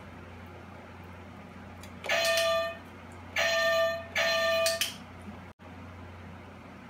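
Green Boing Button on the floor, pressed by a puppy's paw, sounds three times, each a single steady tone lasting under a second; the last two come close together.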